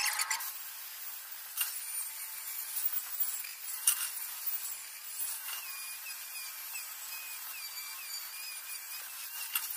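Angle grinder grinding weld seams on a sheet-steel mould, its sound sped up with the fast-forwarded footage so it comes through as a thin, high whine. A few sharp metallic clinks cut in, one about a second and a half in and another about four seconds in.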